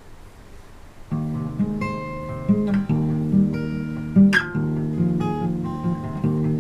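Acoustic guitar starting a song's intro about a second in, playing ringing chords that change every couple of seconds.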